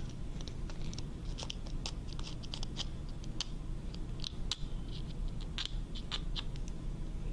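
Stitches of a jacket seam being cut and picked out: a run of short, irregular snips and ticks.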